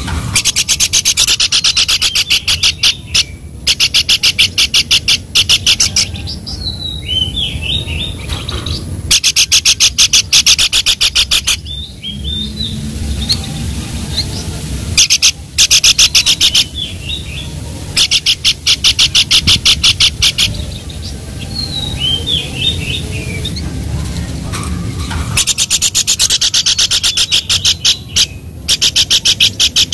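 Songbird calling in repeated bursts of very fast, high, dry chattering pulses, each burst two to three seconds long, with short gliding whistled notes in the gaps between bursts.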